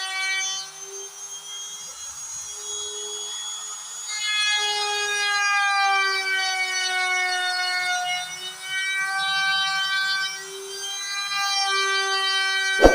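DIY CNC router carving wood: its motors give a high whine that steps up and down in pitch and loudness as the machine moves, with a sharp click near the end.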